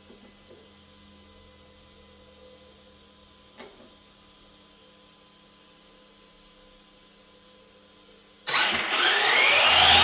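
Arrma Granite VXL V3's 3660-size 3200kV brushless motor suddenly spun up on the throttle near the end, a loud whine rising in pitch with the drivetrain noise. Before that there is only the faint steady hum of the truck's two cooling fans, with one small click.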